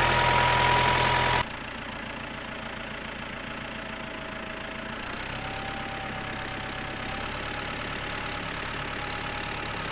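Ford 755 backhoe loader's engine running steadily as the machine drives away. It is louder for the first second and a half, then drops suddenly and runs on at a lower, steady level with a faint whine over the engine hum.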